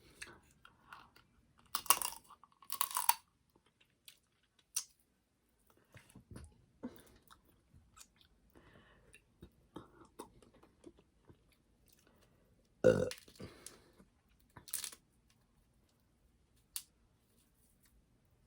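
Close-miked eating of snow crab: scattered small clicks and cracks of the shells being worked apart, and chewing. A few louder short sounds come about two and three seconds in, and the loudest, a short low one, comes near thirteen seconds.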